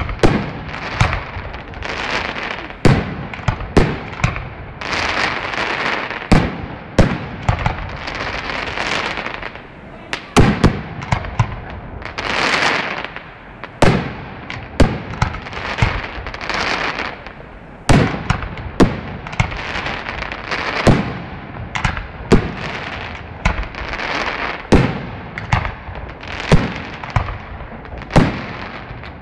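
Aerial firework shells bursting in rapid succession during a pyrotechnic display: sharp bangs come irregularly, often about a second apart, over a continuous crackle and sizzle from the bursting stars.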